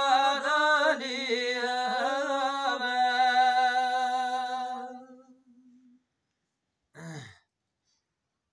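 A man singing a Gojri qissa unaccompanied, holding a long wavering note at the end of a line that fades out about five seconds in. A short vocal sound follows about two seconds later.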